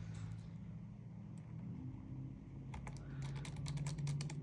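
Quick run of small sharp clicks and taps, starting a little past halfway: a precision screwdriver and tiny screws being worked into a laptop's hinge brackets. A low steady hum lies underneath.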